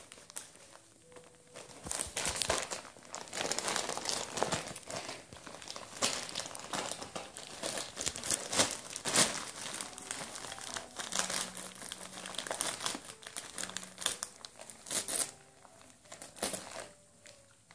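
Christmas wrapping paper crinkling and crumpling in irregular bursts as a Vizsla noses and paws at a wrapped gift, working it open.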